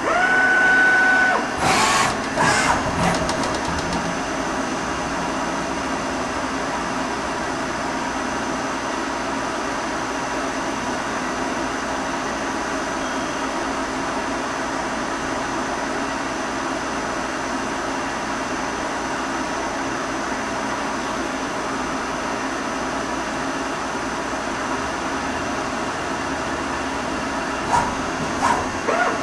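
YCM Supermax 4-axis CNC vertical machining center running its program without cutting: a steady mechanical whir of the spindle and axis drives. A short steady whine opens it, and a few loud knocks come about two seconds in.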